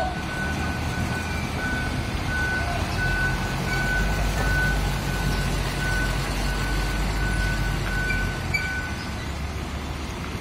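Heavy diesel engines of a container reach stacker and a container truck running, with a reversing alarm beeping over them that stops about nine seconds in.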